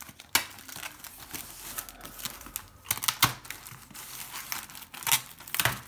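Parcel packaging crinkling and rustling as it is unwrapped by hand, with scattered sharp crackles and a few louder snaps.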